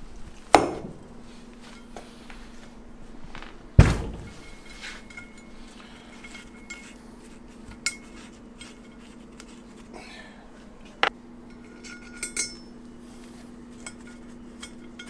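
Metal parts clinking and knocking as a heated ring gear is fitted onto a frozen differential carrier and bolts are started to draw it on. There are two sharp metal knocks, about half a second in and about four seconds in, then lighter scattered clinks and clicks.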